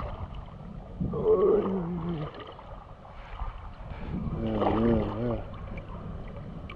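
Two drawn-out wordless vocal sounds from a person, the first falling in pitch about a second in, the second wavering a little past four seconds in, over a steady low rumble of shallow seawater moving around the camera.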